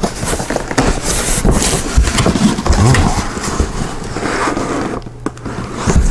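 Cardboard box and packing material scraping and rustling as the parts are handled and pulled out, with scattered knocks.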